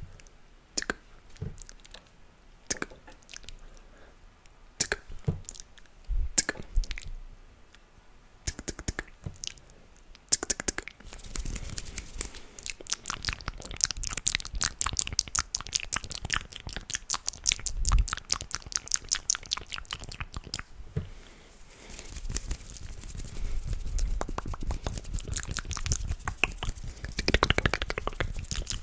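Close-miked ASMR mouth and hand sounds: scattered clicks and pops for about the first ten seconds, then a dense run of rapid crackling clicks.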